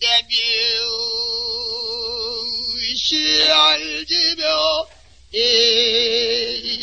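Pansori singing: a solo voice holds long, wavering notes with heavy vibrato and breaks off briefly about five seconds in. The recording is an old one with a narrow sound.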